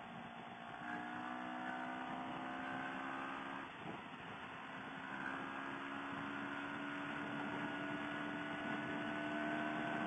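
CFMoto CL-X 700's parallel-twin engine running at a steady cruising pitch over wind rush, with a brief drop in the note about four seconds in before it picks up again and holds steady.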